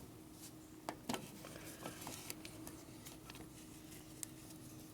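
Faint scattered clicks and light handling noises of a rubber oil hose being pushed through a tight gap in a motorcycle frame, over a faint steady hum.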